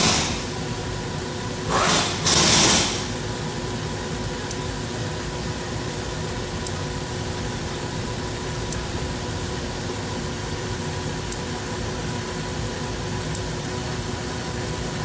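Car engine idling, heard close up at its front belt drive and pulleys: a steady running noise with a faint whine and a light tick about every two seconds. Two brief, loud rushes of noise come in the first three seconds.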